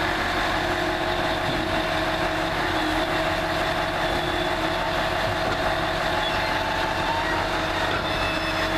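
Ropa Tiger 4 sugar beet harvester running close by: a steady, dense mechanical din of its engine and machinery, with a few steady whining tones on top.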